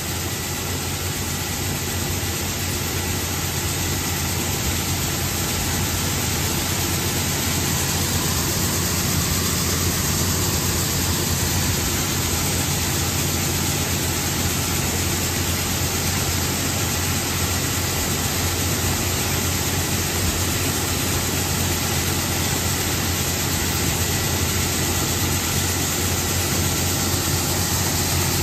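Steady machinery noise of a tractor engine running alongside augers and a homemade rotary grain cleaner, with shelled corn pouring through the turning screen as a continuous hiss. The noise stays even throughout and grows slightly louder partway in.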